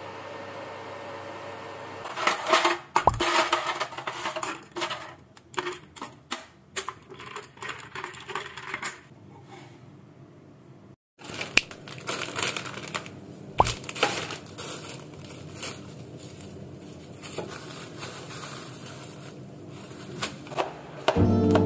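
The steady hum of an induction cooktop running under a frying pan, then a run of sharp clinks and knocks of a ceramic plate and mug being handled on a table. After a brief break come softer taps and the rustle of plastic grocery bags being unpacked onto a worktop.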